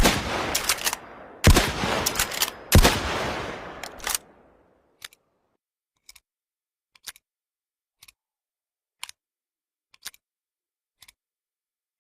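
Mosin-Nagant rifle shots: a sharp crack right at the start, then two loud shots about a second and a half and three seconds in, each followed by a long rolling echo that dies away by about four and a half seconds. After that come faint, evenly spaced clicks about once a second.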